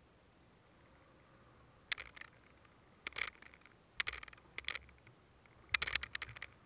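Short clusters of scraping and knocking as a fisherman handles his gear in a small boat, a plastic jar being picked up near the end.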